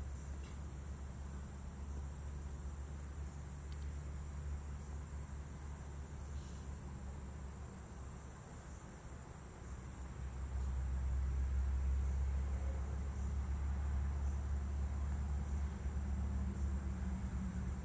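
Steady low hum with an even high-pitched hiss and no distinct sounds, growing louder about ten seconds in.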